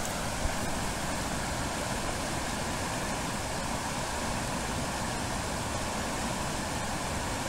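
Steady rush of river water flowing over a small falls.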